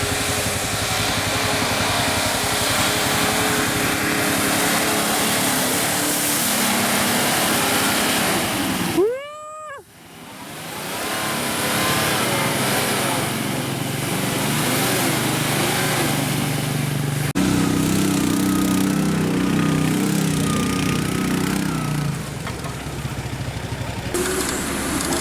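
Off-road 4x4 engine running and revving under load, with a haze of wheel and mud noise. The sound drops out briefly about nine seconds in, with a short rising-and-falling pitched sound, and changes abruptly at about seventeen seconds.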